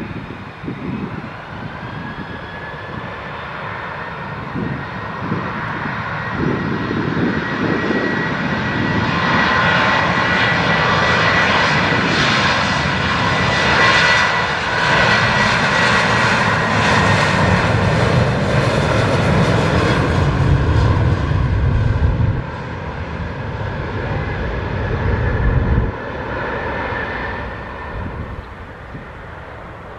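Jet airliner passing close by with its engines running: a steady high whine over a broad jet noise that builds over several seconds, peaks in the middle, and fades near the end, with heavy low rumble late in the pass.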